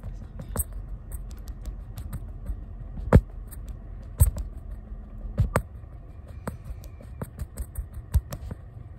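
Fingers with long painted nails rubbing and dabbing right on the phone's camera and microphone: a soft scratchy rubbing with scattered sharp taps and clicks, the loudest about three, four and five and a half seconds in.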